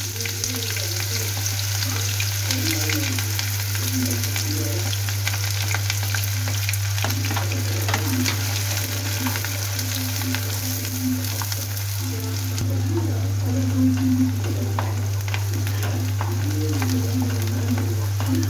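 Chopped onions sizzling as they fry in hot oil in a nonstick kadai, with a wooden spatula stirring them and scraping against the pan in small clicks. A steady low hum runs underneath.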